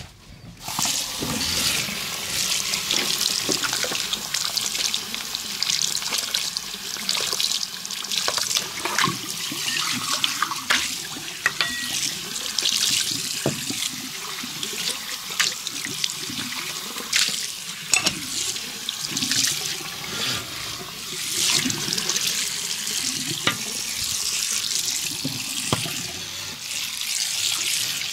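Water running from a tap into a wash basin with uneven splashing, as shampoo is rinsed out of hair. It starts suddenly about half a second in.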